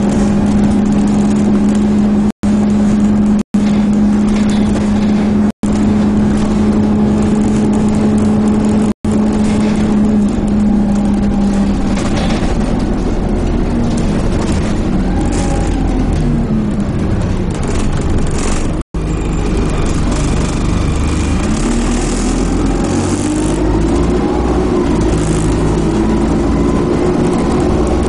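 Dennis Dart SLF single-deck bus engine and drivetrain heard from inside the saloon. A steady droning hum runs for the first dozen seconds, then the engine note rises and falls as the bus moves off through its gears, with a deeper rumble in the second half. The sound cuts out to silence for an instant five times.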